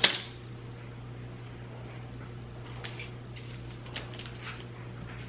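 A sharp click at the start, then a few faint clicks and taps of objects being handled, over a steady low electrical hum.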